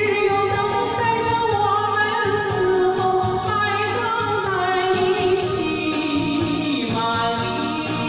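A woman singing a Mandarin song into a microphone over backing music, holding long notes with a wavering vibrato.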